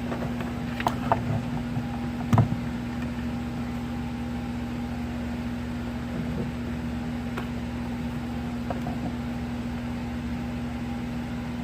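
A steady low electrical hum under even room noise, with a few faint clicks and taps in the first few seconds and another near nine seconds.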